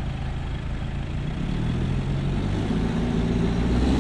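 Vehicle engine running, then revving up from about halfway through, rising in pitch and getting louder.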